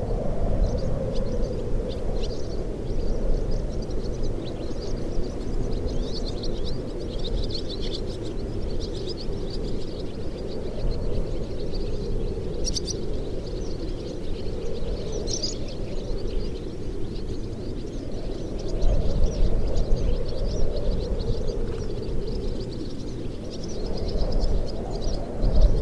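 Wind whistling through the open doors and sagging window frames of an old wooden house, a low wavering moan that swells and fades over a rumble of wind, the rumble growing stronger near the end. Swallows chirp high above it throughout.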